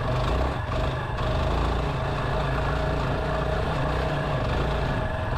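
Yamaha XT250's air-cooled single-cylinder four-stroke engine running steadily at low speed while the motorcycle is ridden over a rocky trail.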